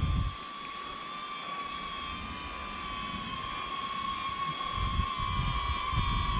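DJI Neo mini drone's propellers whining steadily at a high pitch, growing louder as it comes back in. Low wind buffeting rumbles at the start and again about five seconds in.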